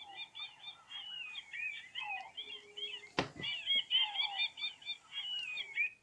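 Sagem my401C flip phone's small speaker playing a preset bird-song ringtone: quick, twittering chirps that cut off suddenly at the end, with one sharp knock about three seconds in.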